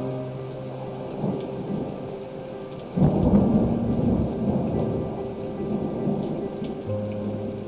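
Recorded rain and thunder sound effect: steady rain hiss, with a thunderclap about three seconds in that rumbles and slowly fades, over a few held musical tones.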